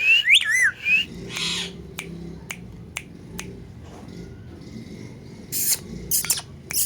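Parrot calling with quick gliding whistle-like squawks in the first second, followed by a series of sharp clicks about every half second and a few short harsh bursts.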